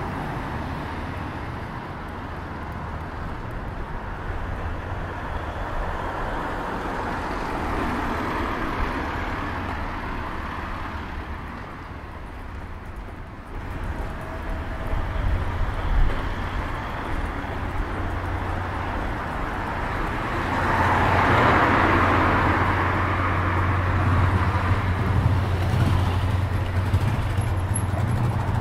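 Road traffic noise: motor vehicles running, with one passing close and louder about twenty seconds in.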